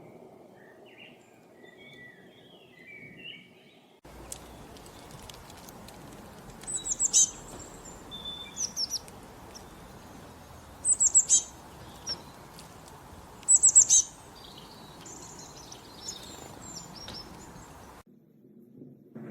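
Wild birds singing: faint chirps at first, then loud, high calls of three or four quick falling notes, repeated a few times over a steady background hiss. The sound changes abruptly about four seconds in and stops abruptly near the end.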